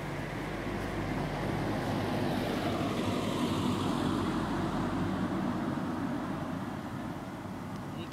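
A vehicle passing by: its noise swells to a peak about four seconds in and then fades, its pitch falling as it goes past.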